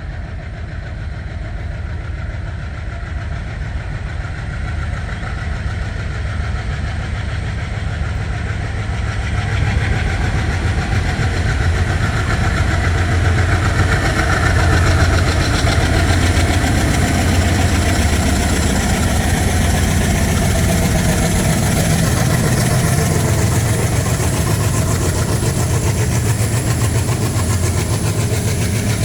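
Goods train running on the track: a steady low rumble that grows louder about a third of the way in, with a thin high ringing tone joining it later.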